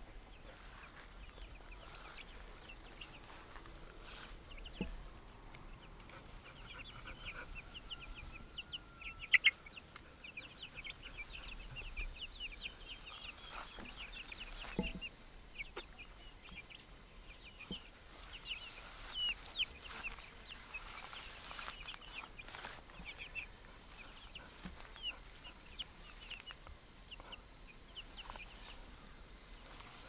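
A flock of chicks peeping, many short high cheeps overlapping, busiest through the middle. Two sharp knocks about nine seconds in are the loudest sounds.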